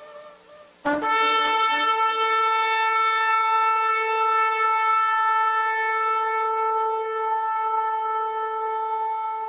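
Shofar sounded in one long, steady held blast that starts suddenly about a second in, after the fading tail of a previous call.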